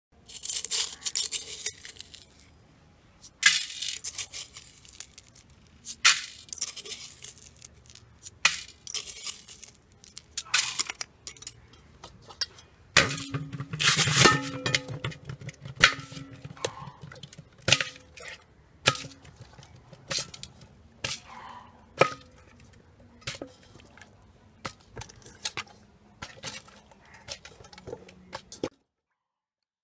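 Whole pearl spot fish being scrubbed by hand with salt and water in aluminium pans: gritty scraping and rubbing, with frequent sharp clinks and knocks of the metal pans, busiest about halfway through, stopping abruptly near the end.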